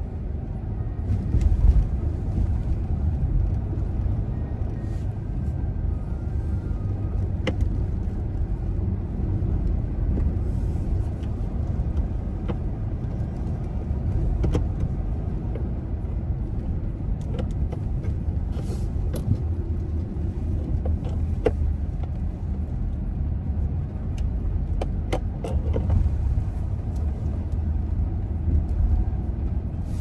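A vehicle travelling along a road: a steady low rumble of road and engine noise, with a few faint clicks.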